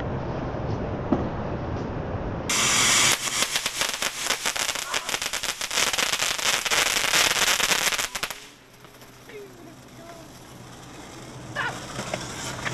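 A fountain firework hissing and crackling hard for about six seconds. It starts suddenly about two and a half seconds in and cuts off abruptly. Before it there is a steady low hum; after it things are quieter, with faint voices.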